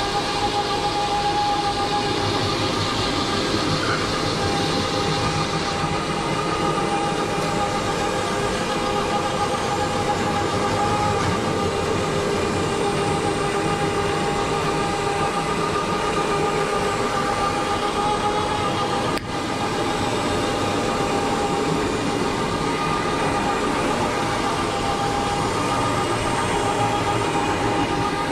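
Rotary carpet-extraction machine running steadily as it cleans carpet: a constant whining hum from the spinning head and the vacuum pulling through the hose, with one momentary drop in level about two-thirds of the way in.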